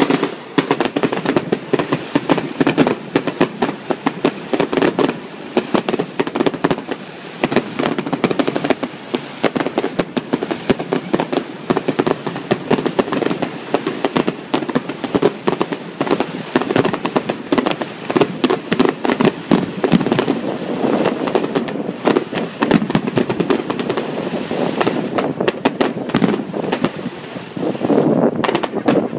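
Fireworks display: a dense, unbroken barrage of shell bursts, bangs and crackle, many a second.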